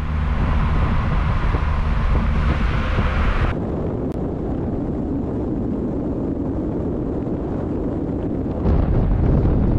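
Wind buffeting the microphone over a steady low rumble. The sound changes abruptly about three and a half seconds in, dropping its hiss, and grows louder again near the end.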